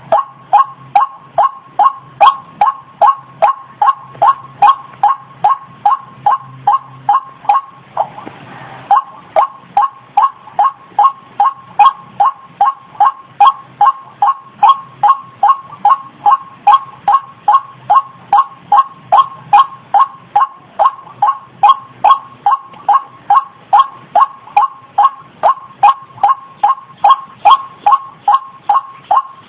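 White-breasted waterhen's 'kruok' call played as a bird lure: short, slightly falling notes repeated evenly at about two and a half a second, with a brief break about eight seconds in.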